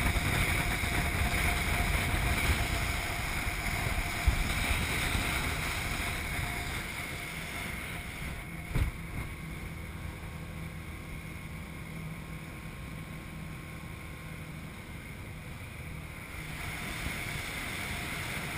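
Motorboat under way: steady engine hum mixed with wind on the microphone and the rush of water from the wake, growing quieter after about six or seven seconds. A couple of brief knocks, about four and nine seconds in.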